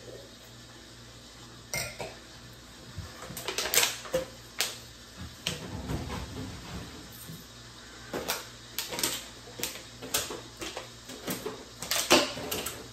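Irregular crackles, clicks and knocks starting about two seconds in: a plastic water bottle being handled and crinkled, with items knocking on the tabletop.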